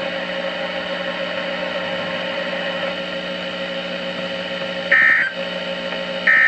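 Weather radio broadcast hum, a steady buzzy tone, broken about five seconds in by a short shrill digital data burst, with a second burst starting at the very end: the Emergency Alert System end-of-message signal that closes the alert.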